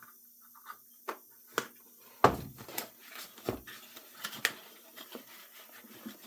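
Knocks, clicks and rustling of packaging and accessories being handled while unpacking an RC car's box of parts, the loudest knock a little over two seconds in.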